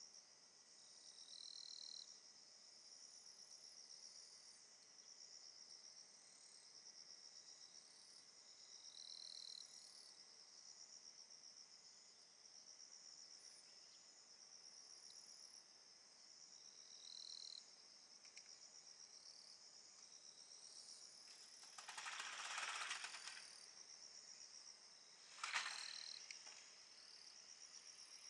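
Insects chirring steadily and faintly, a high buzzing trill with shorter chirps recurring every several seconds. A hiss lasting about two seconds comes near the end, followed by a short sharp noise, the loudest moment.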